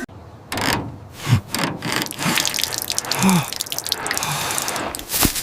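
Liquid gushing and splashing out of a leak, with drops plopping roughly once a second; a cartoon sound effect.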